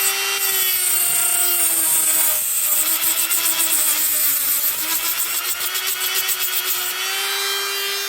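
Dremel rotary tool with a diamond cutting wheel running at a steady high whine. From about two seconds in it cuts into the deadbolt's steel rivet heads: the pitch sags and wavers under the load, with a harsh grinding hiss. Near the end it returns to its free-running whine.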